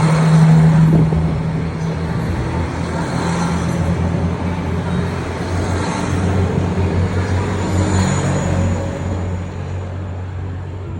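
Diesel engines of a JR Hokkaido KiHa 261 series diesel multiple unit running under power as the train pulls away, a steady low drone whose pitch drops about four seconds in and which gradually fades near the end.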